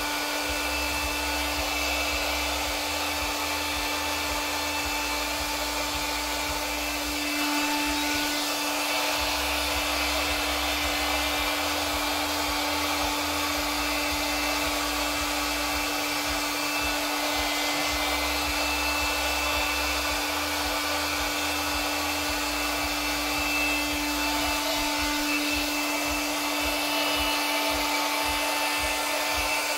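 Handheld electric air blower running steadily, an even rush of air with a constant motor whine.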